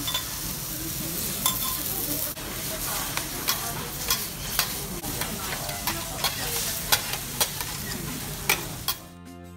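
Beaten egg, bitter melon and tofu sizzling on a hot steel teppanyaki griddle, with metal spatulas clicking and scraping sharply on the plate about a dozen times as the goya champuru is turned and chopped. The sizzle cuts off about nine seconds in, giving way to soft music.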